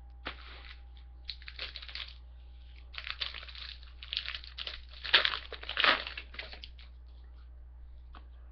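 Foil wrapper of a trading-card pack crinkling and tearing as it is opened, in a run of rustling bursts that is loudest about five to six seconds in and stops about seven seconds in. A steady low hum lies underneath.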